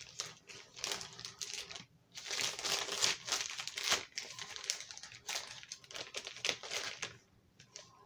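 Plastic crinkling and rustling in the hands, with small clicks and taps, as graded comic slabs and their packaging are handled; busiest from about two to four seconds in.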